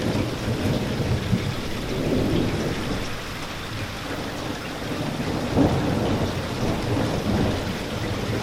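Rain falling steadily under a continuous low rolling rumble of thunder, which eases slightly in the middle and swells again a little past halfway.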